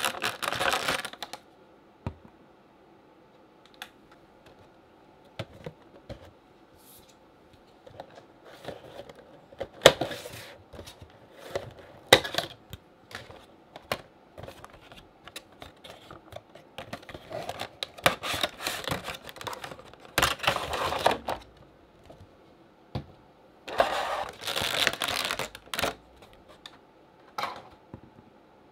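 Hands handling a vinyl figure, its clear plastic clamshell insert and its cardboard box: bursts of plastic and cardboard rustling and crinkling, with scattered light clicks and taps as pieces are moved and set down on a desk, and quiet gaps between.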